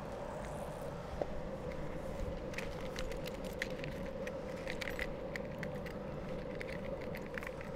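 Longboard wheels rolling on smooth asphalt: a steady hum over a low rumble, with many small irregular clicks and ticks.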